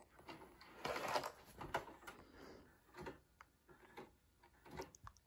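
A VCR's tape mechanism threading and starting a VHS cassette: faint irregular mechanical clicks and short whirring swishes.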